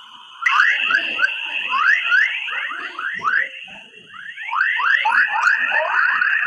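Earth's space 'chorus' waves turned into sound: quick rising chirps, several a second, over a steady high tone, much like birds twittering. It starts strongly about half a second in and thins out briefly around the middle.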